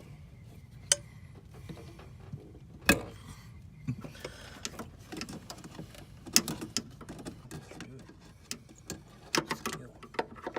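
Scattered clicks and knocks of tools and parts being handled while working on a hose in a car's engine bay, with sharp knocks about one, three, six and nine seconds in.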